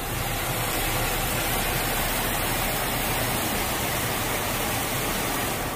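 Automatic car wash water jets spraying over a Jeep Wrangler's windshield and clear plastic roof panel, heard from inside the cabin as a steady rushing hiss. It eases slightly near the end.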